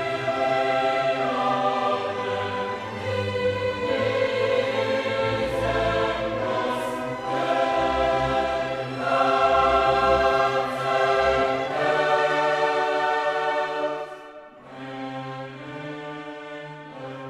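Classical choir singing with a full orchestra. About fourteen seconds in the choir drops out and a quieter passage for orchestral strings follows.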